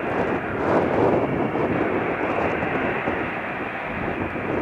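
Steady roar of jet aircraft engine noise, even and unbroken with no rise or fall.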